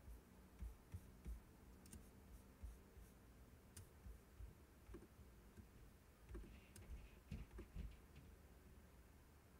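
Near silence with faint, irregular clicks and soft taps, a few more of them close together in the second half, like hands working a device's screen or controls.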